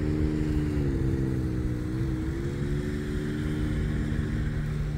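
An engine running steadily, its pitch sagging and recovering slightly a couple of times.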